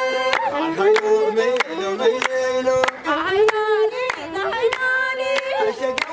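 Ethiopian azmari song: voices singing a wavering melody over steady, rhythmic hand clapping, with a held tone beneath that fits a masinko, the bowed one-string fiddle.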